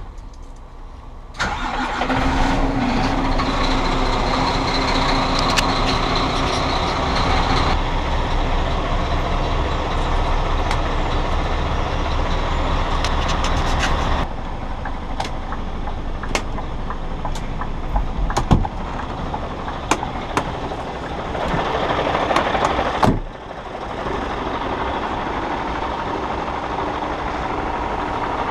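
Scania grab lorry's diesel engine running, heard in several short clips, with the sound changing abruptly at each cut. Scattered clicks sound over the engine in the middle.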